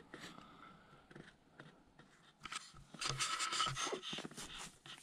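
Tent fabric and gear rustling and scraping close by as someone gets into a tent. There are faint scattered clicks at first, then dense rustling from about two and a half seconds in.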